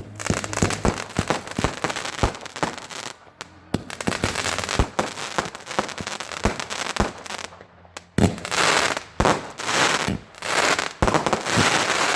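Fireworks display: a rapid, irregular string of shell bursts going off. From about two-thirds of the way through come repeated waves of dense crackling.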